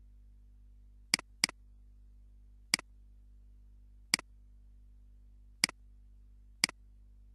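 Computer mouse clicking: a quick double-click about a second in, then four single sharp clicks spaced a second or more apart, over a faint steady hum.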